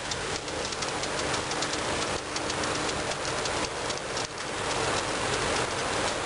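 Chicken wings sizzling on a hot grill, a dense steady crackle.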